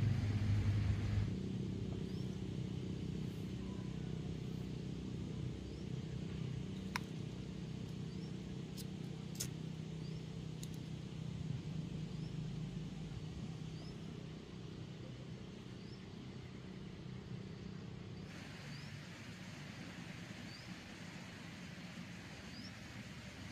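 Low steady rumble of a distant engine, slowly fading, with a few sharp clicks and faint short high chirps.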